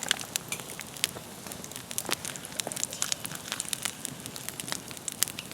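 Duck breast sizzling skin-side down on a fire-heated rock, its fat rendering out, with scattered sharp crackles and pops from the fat and the campfire.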